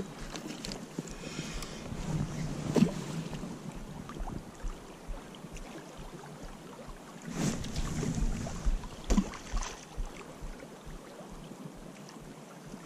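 Swift river current running over a shallow gravel bank, with wind on the microphone and a few short handling knocks from the rod and reel.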